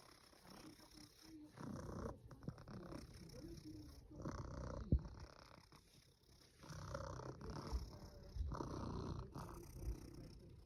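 Russian Blue cat snoring: several slow, faint breaths, each one to two seconds long, with a brief click about five seconds in.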